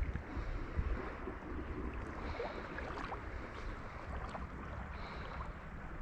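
Flowing river water rushing steadily, with wind buffeting the microphone as a low rumble.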